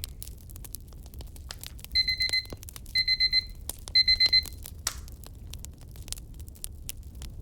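Pomodoro timer alarm beeping: three short bursts of rapid beeps about a second apart, over a crackling fire.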